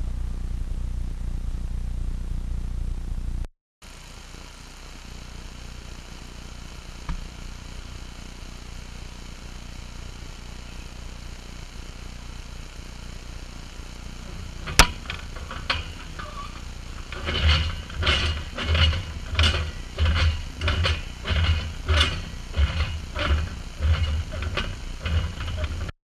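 A steady low rumble that cuts out, then a single sharp click, followed by a run of repeated knocks and clatters, about two a second.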